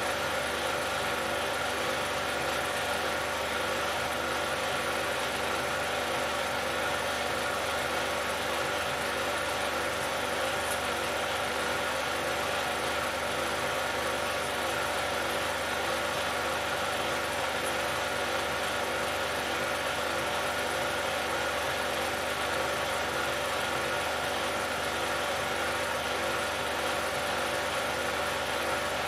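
16mm film projector running: a steady mechanical hum and hiss with a slow, even pulse.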